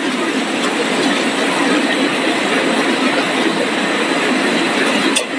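Corn chip production line machinery running: a steady, dense mechanical noise from the roller cutter and mesh conveyor.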